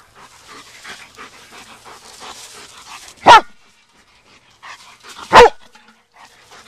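Black German Shepherd Dog barking twice, two loud, sharp barks about two seconds apart, the first about three seconds in.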